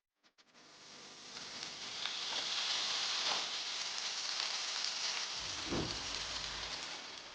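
Food sizzling in hot oil in a cooking pot, building up over the first couple of seconds and dying down near the end, with a low thud about six seconds in.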